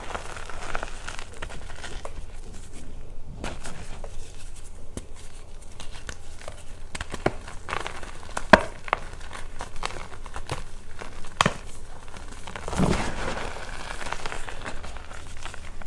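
Reformed gym chalk crunching and crumbling in bare hands, with irregular crackles and powder sifting. A sharp crack comes a little past halfway and another a few seconds later, then a louder gritty squeeze near three-quarters through.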